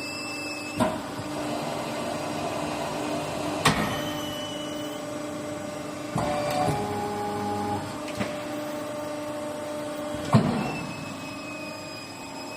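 Hydraulic rubber bale guillotine cutter running: the hydraulic power unit hums steadily while the blade cycles. Four sharp knocks, about a second in, at four, at six and near ten seconds, mark the blade stopping and reversing, with the shortened 0.5-second pause at the top.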